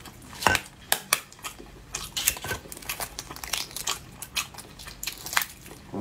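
Irregular crinkling, crackling and clicking of food being handled and eaten, with sharp ticks every fraction of a second.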